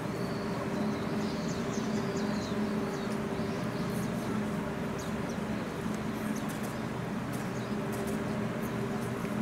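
Outdoor ambience: a steady low hum, with small birds chirping in short high notes through the first two seconds or so and faint ticks scattered after.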